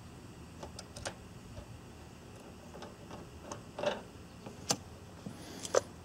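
Scattered light clicks and taps of brass fittings as a refrigerant service hose is unscrewed and taken off a valve-core removal tool on a mini-split's service port.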